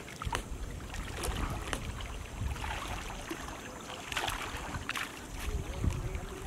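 Wind buffeting the microphone over open water, with light water sloshing and a few short knocks scattered through.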